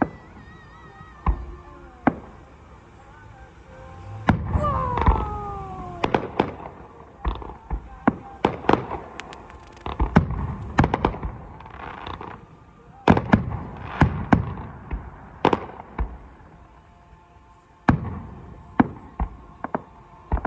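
Fireworks display: aerial shells bursting in a rapid string of booms and sharp cracks, thickest from about four seconds in, easing off briefly near the end before more bursts.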